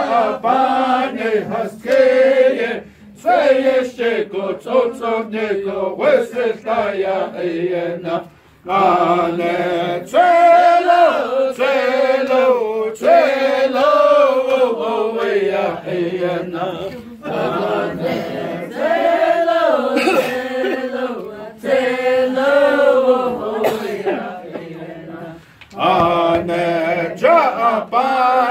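A group of voices singing a Navajo shoe game (Kéishjéé') song, a chant in repeated phrases with short breaks between them.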